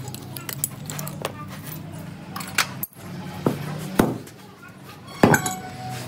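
Metal parts and hand tools clinking and knocking against each other in a short irregular series during a truck gearbox rebuild, the loudest knock about five seconds in, over a steady low hum.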